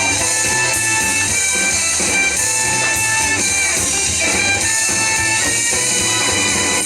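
Recorded music with a steady beat and instruments, no singing in this stretch.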